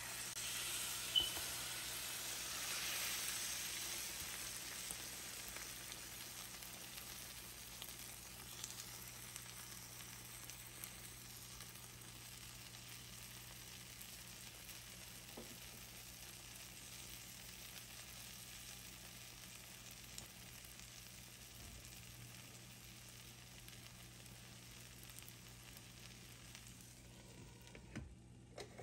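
Potato-and-egg Spanish omelette sizzling in oil in a nonstick frying pan, loudest in the first few seconds after it is slid back into the pan and slowly quietening. A sharp tap sounds about a second in, and a glass lid clinks onto the pan near the end.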